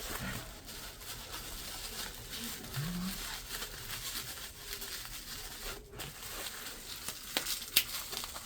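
Plastic parts bags from a caliper rebuild kit crinkling and rustling as they are handled, with a few sharp clicks near the end.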